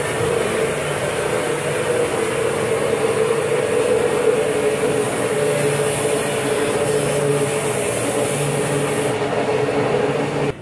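Electric stick blender running steadily in a tall beaker, with a constant whirring hum, as it blends egg, garlic and olive oil poured in a thin stream into a garlic mayonnaise.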